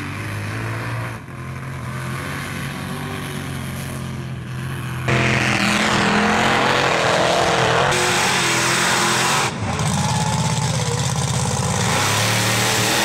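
Mud truck engines revving hard as the trucks spin their oversized tires through mud and sand. The engine noise jumps much louder about five seconds in, then changes abruptly several times as one run gives way to another.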